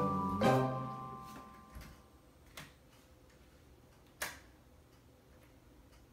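Music notes ring and fade away over the first two seconds. Then come two clicks, a faint one and, about four seconds in, a sharper one, from a toddler turning a metal doorknob.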